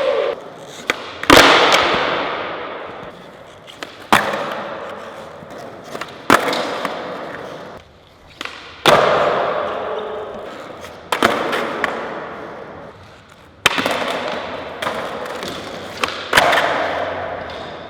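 Skateboard tricks: about seven sharp board pops and landings, two to three seconds apart, each followed by the wheels rolling and fading away.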